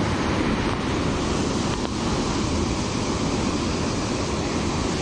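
Ocean surf breaking and washing over a rocky shore: a steady rushing noise, with wind rumbling on the microphone.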